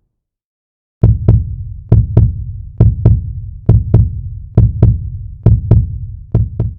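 Heartbeat sound effect: seven deep double thumps, lub-dub, a little under a second apart, starting about a second in after a moment of silence.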